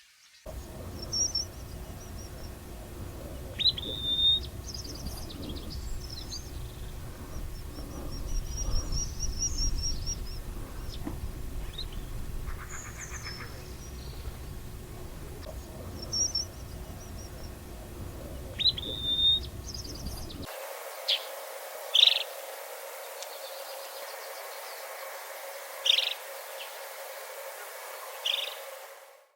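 Wild birds calling in short, high notes over a low wind rumble. Partway through, this gives way to a series of sharp, falling calls repeated every two to four seconds.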